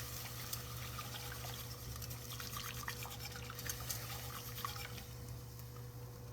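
Thick sauce of cream of mushroom soup, wine and butter drippings bubbling in a Dutch oven over low heat, with scattered small pops and crackles.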